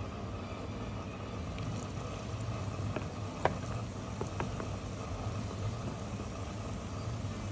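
Battered chicken pieces deep-frying in hot oil in a wok: a steady sizzle with a few sharp pops around the middle, over a low steady hum.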